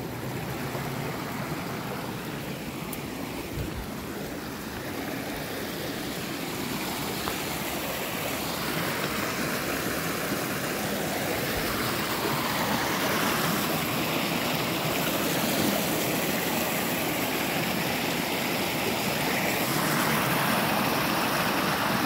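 Rocky creek rushing and splashing over boulders and down a small cascade: a steady wash of running water that grows gradually louder.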